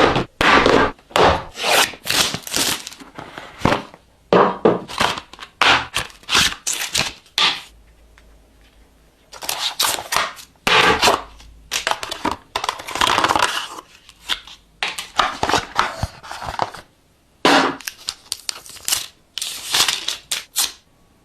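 Phone box packaging being torn open and handled: repeated bursts of tearing and crinkling with short pauses between them, and a quieter stretch about eight seconds in.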